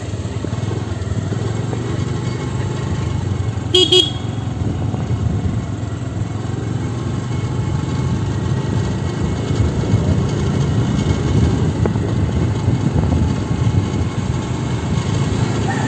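Motorbike running along a road, with steady engine and wind noise. A vehicle horn gives two quick short beeps about four seconds in.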